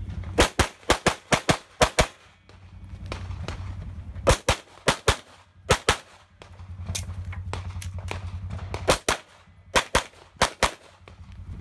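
Competition pistol fire: a fast string of about eight shots right after the start, then quick pairs of shots, three pairs and a few seconds later three more, with movement between positions in the gaps. A low steady rumble runs under the quiet stretches.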